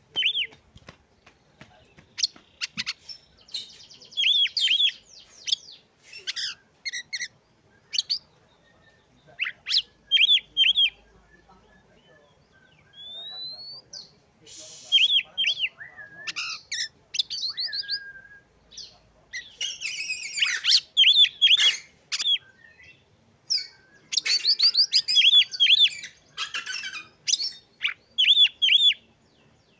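Oriental magpie-robin singing in separate phrases with pauses between: quick runs of repeated high whistled notes, short trills, and a single rising whistle about halfway through.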